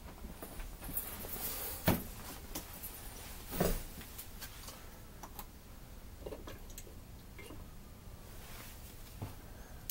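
Handling noises at a wooden workbench: a few separate knocks and a duller thud as things are set down and moved, with light rustling between. The sharpest knock comes about two seconds in.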